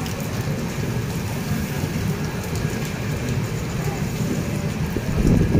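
Heavy rain hissing, mixed with the low rumble of an LHB passenger train as it departs. The rumble swells near the end.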